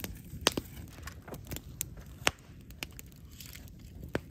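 Wood campfire crackling and popping: irregular sharp pops over a low steady rush of flames, the loudest about two seconds in.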